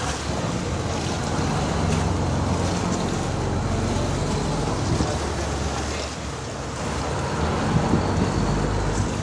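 Tour boat's engine running steadily, with water rushing alongside the hull.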